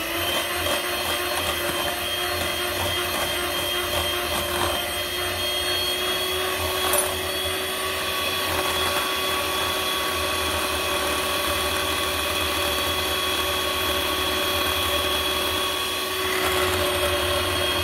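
Small electric hand mixer running at a steady speed, its twin beaters whisking a batter of butter, sugar, oil and egg in a glass bowl. There is a single short click about seven seconds in.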